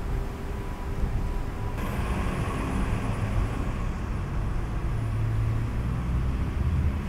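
City street ambience: a steady low rumble of traffic. It turns a little brighter and hissier about two seconds in.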